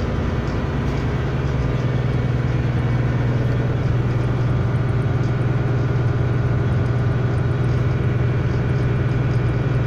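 Steady low drone of running machinery, an even engine-room hum. The emergency diesel generator has not yet been started.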